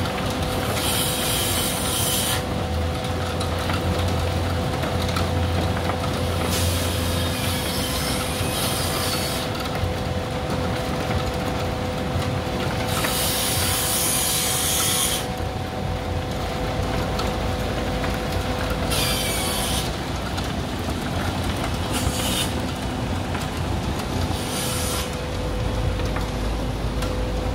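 A machine engine running with a steady, constant hum, with short bursts of hissing rush every few seconds.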